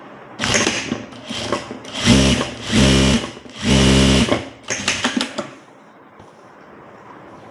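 Electronic sewing machine stitching in a series of short runs, starting and stopping, the three longest and loudest about two to four seconds in, then a faint steady hum.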